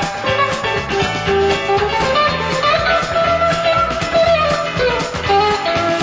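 Live rock band playing an instrumental passage: a lead electric guitar line with sliding notes over bass guitar and drum kit.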